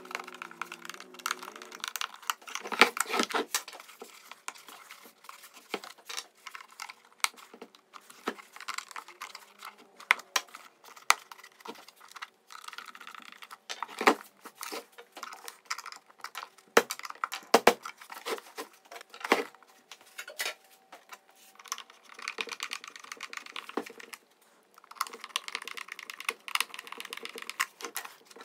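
Plastic housing of a cordless-mower battery pack being screwed shut with a hand screwdriver and turned over by hand: scattered clicks and knocks of the plastic case and the screwdriver, with several stretches of scraping.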